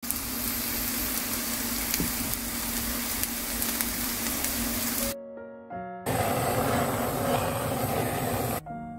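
Zucchini pancake (shredded zucchini, carrot and onion) sizzling in cooking oil in a frying pan. The sizzle breaks off for a short piano phrase about five seconds in, comes back a second later, and gives way to piano again near the end.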